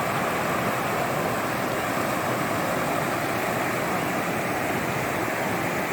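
Steady rushing of flowing floodwater, an even noise that holds at the same level throughout.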